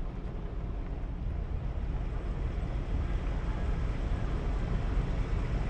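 Steady low rumble of a vehicle on a gravel road, heard through a microphone mounted outside the vehicle, with wind on the microphone.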